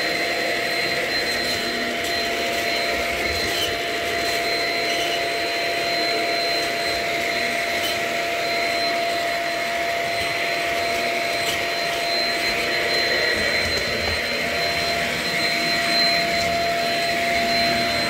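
Shark Rocket self-cleaning stick vacuum running steadily: a constant motor whine over the rush of air.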